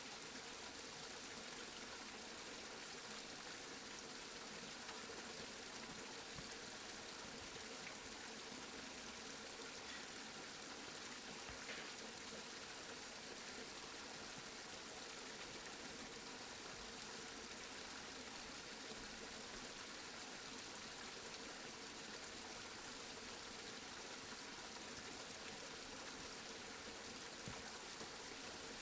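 Steady rain falling: an even hiss that never lets up, with a few faint drop ticks.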